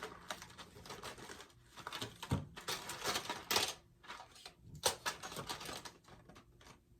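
Rustling and scratchy handling noise of a wig being adjusted on the head, in irregular bursts with small clicks, loudest around the middle.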